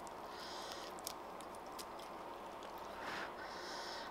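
Chopsticks lifting thick noodles from a pan, with a few light clicks in the first two seconds, then a short wet slurp of noodles about three seconds in.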